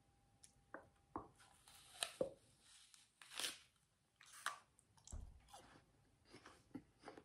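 A crisp red apple being bitten into and chewed, a series of short crunches.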